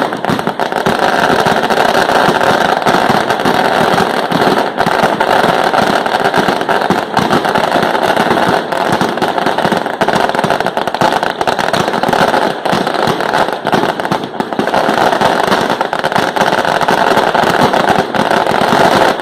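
A dense, continuous barrage of fireworks and firecrackers: crackling and popping steadily, without pause.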